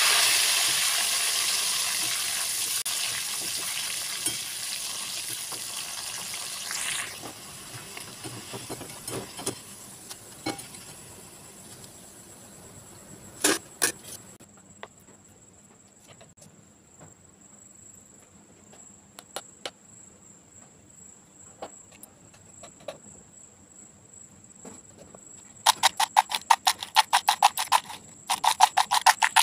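Banana slices deep-frying in hot oil in a steel kadai, a loud sizzle that fades away over the first several seconds, with scattered clicks of a wire skimmer against the pan. Near the end, a quick rattling of crisp fried banana chips tossed around in a plastic bowl.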